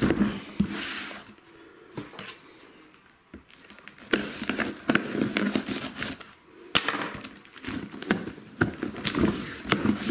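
A knife slicing through the packing tape on a cardboard box, with scraping and rustling and sharp knocks of the cardboard as the box is handled. There is a quieter pause of about two seconds near the start, then the cutting and knocking carry on.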